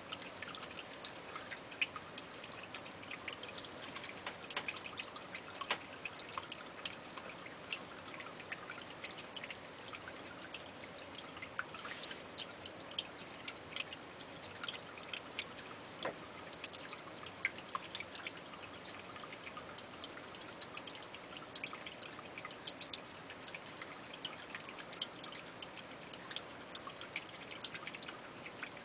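Steady trickling of water, with many small irregular drips and ticks.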